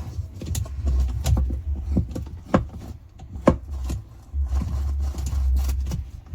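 Irregular sharp metallic clicks and knocks of hand tools and parts as a washing machine's gearbox is fitted and its nut tightened, over a low rumble. The two loudest knocks come about two and a half and three and a half seconds in.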